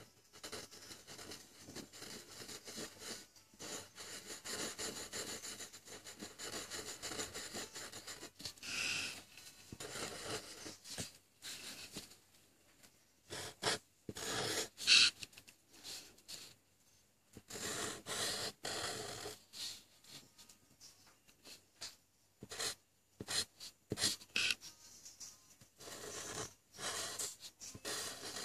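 Black felt-tip marker drawing on lined notebook paper: short scratchy strokes that start and stop, with brief pauses between them and one louder stroke about halfway through.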